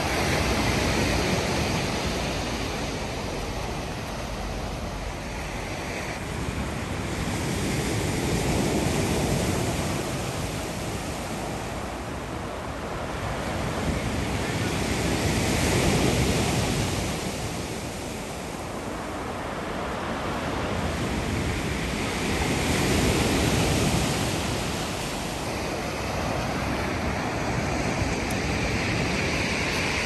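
Black Sea surf breaking and washing up a pebble beach, in slow surges about every seven seconds.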